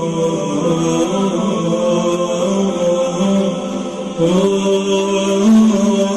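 Chant-like vocal music with long held notes that shift slowly in pitch. About four seconds in, the melody steps up and gets louder.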